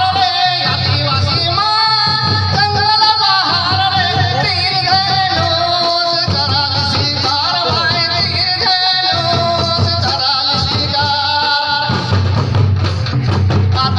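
Traditional folk dance music: a voice singing over drums.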